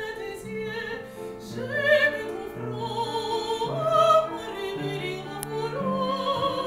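A woman singing in classical operatic style with vibrato on held notes, accompanied by piano.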